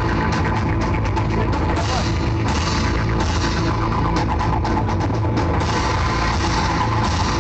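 Rock music with a drum kit playing at a steady level.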